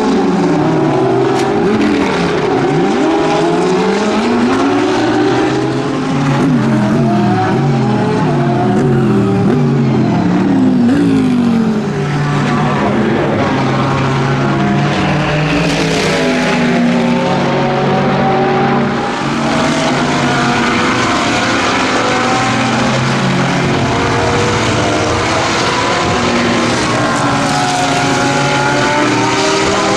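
GT3 race car engines passing trackside one after another, revving up through gear changes and dropping off on the brakes, their engine notes overlapping.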